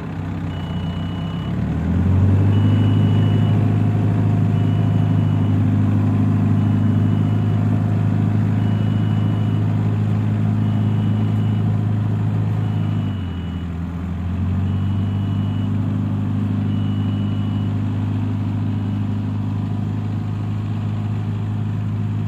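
Backhoe loader's diesel engine running under load, revving up about 2 s in, easing off briefly around 13 s and picking back up, while its reversing alarm beeps about once every two seconds and fades out near the end.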